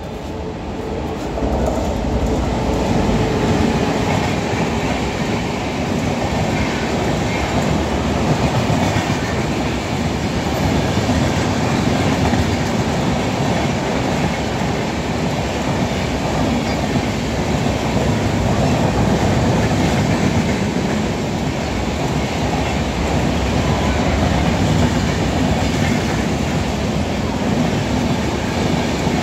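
Avadh Assam Express passenger train running through the station at speed, its red-and-grey LHB coaches passing close by. The wheels make a loud, steady rumble on the rails.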